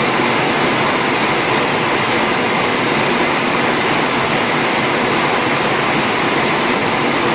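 EMS-UT70 automatic express mail envelope forming machine running at speed. It makes a steady, even mechanical noise with no breaks and a faint high tone running through it.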